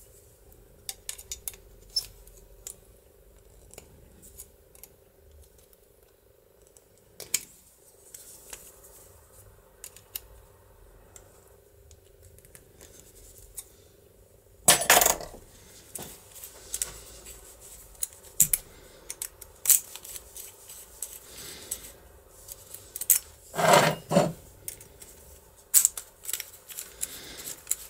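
Small metallic clicks and taps from a DOM IX lock cylinder with a gear ring being handled and reassembled by hand, with a few louder clatters, one about halfway and a pair near the end.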